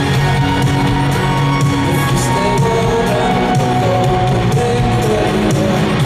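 Live band music from a concert hall: sustained keyboard and guitar chords over bass, with a steady drum beat.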